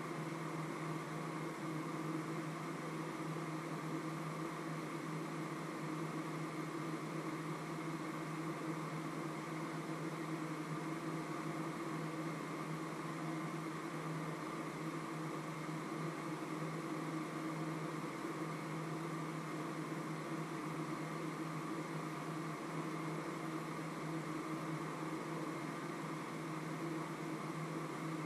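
Steady mechanical hum, unchanging throughout, with a low drone and fainter higher tones over a light hiss.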